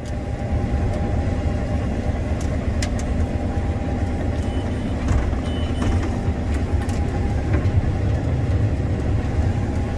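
Case IH 7140 Axial-Flow combine running steadily while harvesting sunflowers: a steady low drone with a faint whine above it and a few scattered clicks.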